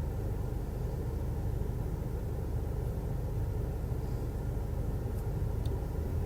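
A steady low rumble with a hum, even throughout, with no clear events.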